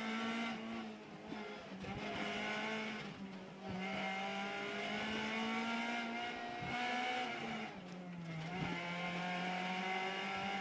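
Honda Civic Group N rally car's four-cylinder engine, heard from inside the cabin, running at fairly steady revs. It eases off briefly a few times, and near eight seconds in the note drops slightly and stays lower.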